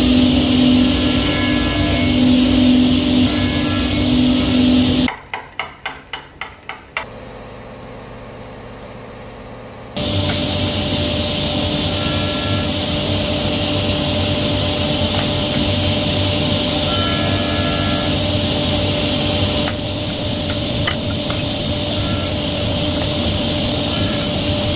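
Woodworking power tools working wood, in short clips that start and stop abruptly: a machine running with a steady hum, then a quick run of about seven evenly spaced knocks, then another machine running steadily for the rest.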